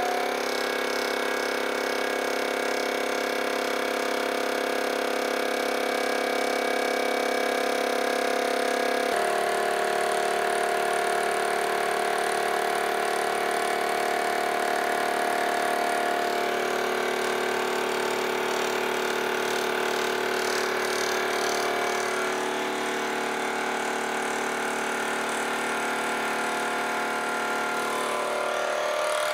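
Vertical milling machine running a dovetail cutter along a cast iron gib under power feed. The cut gives a steady machine whine made of several held tones, which shift slightly a few times.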